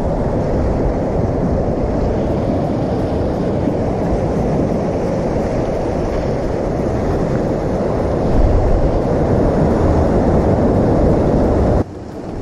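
Ocean surf washing around rocks, with wind rumbling on the microphone: a steady, loud, low rush that grows louder about eight seconds in and drops off abruptly near the end.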